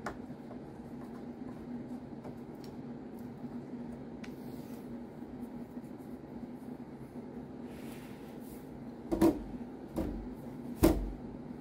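Cisco Catalyst 2980G-A switch's metal chassis being tipped over and laid flat on carpet: three dull knocks about a second apart near the end, over a steady low hum.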